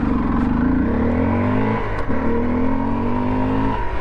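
Honda CRF 250L's single-cylinder four-stroke engine accelerating hard in sand, its pitch rising through a gear, shifting up about two seconds in, then rising again and dropping off near the end.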